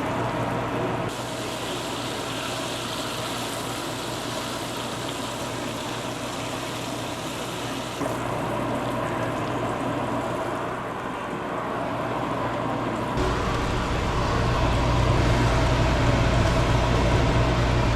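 Pieces of breaded trout sizzling as they deep-fry in hot oil, over a steady low hum that grows louder about three-quarters of the way in.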